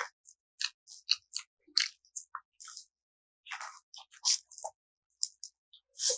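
Close-miked chewing of a mouthful of pakbet: wet mouth smacks and small crunches in short, irregular clicks, with brief pauses between bites.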